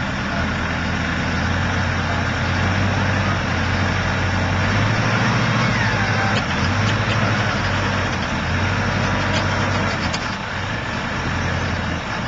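Heavy diesel engine of a recovery machine running steadily as it tips an overturned dumper back over, growing a little louder through the middle.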